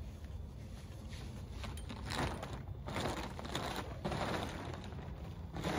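Rustling and crinkling of a greenhouse's plastic cover being handled, in irregular bursts, over a steady low rumble.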